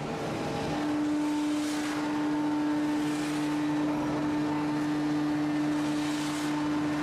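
Heavy hydraulic forging press at work drawing out a hot steel ingot: a steady machine hum with recurring hissing swells every second or two.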